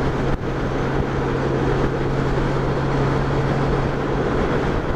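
Touring motorcycle running steadily at road speed, its engine a constant low hum under wind and tyre noise, heard from the rider's seat.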